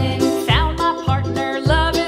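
Background music: a melody of pitched notes over a steady bass beat, about two bass notes a second.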